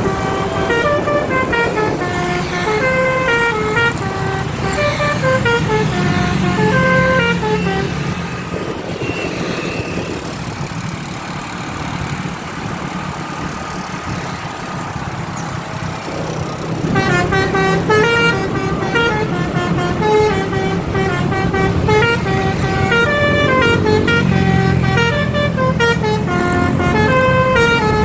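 A bus's basuri musical horn playing a stepping melody of short notes. It falls quiet for several seconds about a third of the way in, then starts the tune again.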